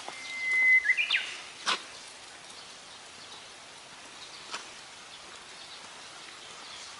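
A bird singing one phrase: a held whistle that breaks, about a second in, into a short rising flourish, over steady outdoor background noise. A sharp click follows, and a fainter one a few seconds later.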